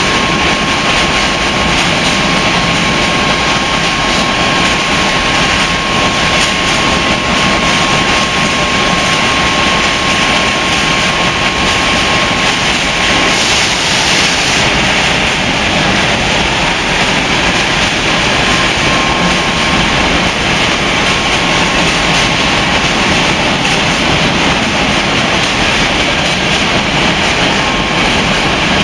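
Freight train of container wagons rolling past at steady speed, a constant rush of wheel and rail noise with a thin steady whine through the first half.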